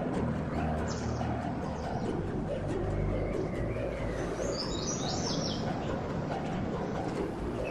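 A short run of high bird chirps about halfway through, over a steady background of low noise.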